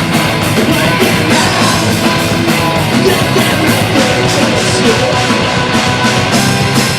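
Rock band playing live, loud and dense, with a steady, driving drum beat under heavy guitars.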